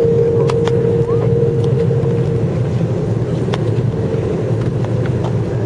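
Airliner cabin noise while taxiing after landing: the jet engines' steady low rumble, with a steady hum tone that fades out about two and a half seconds in and a few light clicks.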